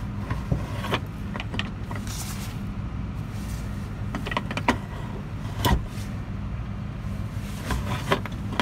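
Cessna 208 Caravan inertial separator T-handle being worked from normal to bypass: a series of clicks and clunks from the handle and its linkage as it is pushed in, turned and pulled out. Under it runs a steady low hum.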